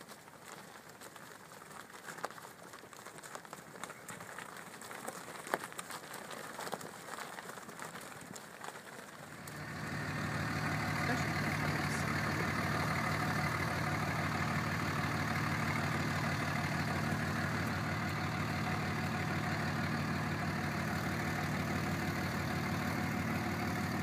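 Scattered light crunches and clicks, then about ten seconds in a nearby engine comes in and idles steadily to the end.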